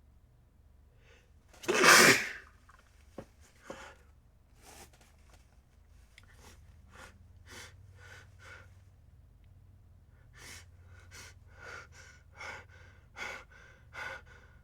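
A person sneezing once, loudly, about two seconds in. After it come a few quieter short sounds, then a steady run of short, soft sounds roughly every two-thirds of a second.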